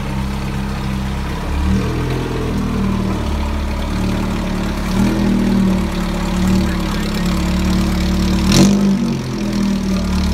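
Engine of a miniature Kenworth replica semi truck running as it drives off, its pitch shifting up and down several times with the throttle. About three quarters of the way through there is one brief, sharp burst of noise.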